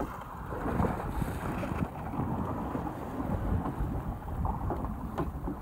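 Wind buffeting the microphone on a small boat over a choppy sea, a rough, gusty rumble with waves washing around the hull. A light click about five seconds in.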